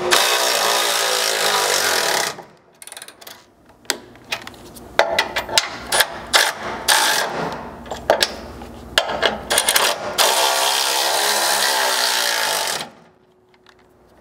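Cordless electric ratchet tightening bolts. It runs in bursts, the longest at the start and about ten seconds in, with the motor's pitch shifting as it goes, and sharp ratchet clicks between runs.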